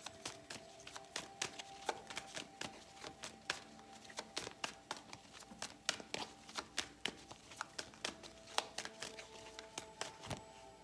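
A deck of tarot cards being overhand-shuffled by hand: a run of quick, irregular card clicks and slaps as packets of cards are pulled off and dropped onto the pile, several a second.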